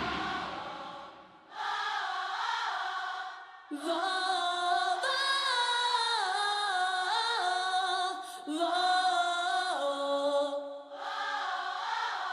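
Concert crowd of women singing a melody together without the band, in four long phrases with short breaks between them. The band's guitar fades out in the first second.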